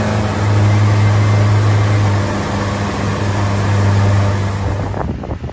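Twin Yamaha 200 hp outboard motors running steadily at cruising speed, a constant low drone over the rush of wind and the churning wake. The sound drops and gets rougher near the end.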